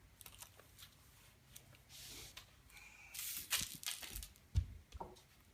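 Crinkling and rustling of wrapping being handled, with scattered light clicks and a low thump about four and a half seconds in.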